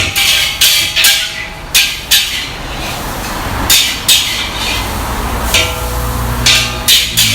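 A metal spatula clanking and scraping against a wok in irregular strokes, one or two a second, over a low rumble.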